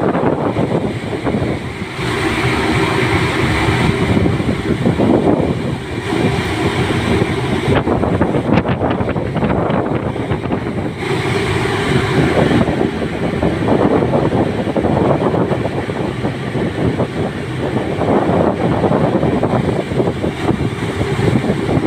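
Wind buffeting the microphone over the steady rush of sea water along a passenger ship's hull. A brief hum comes in about two seconds in and again around eleven seconds.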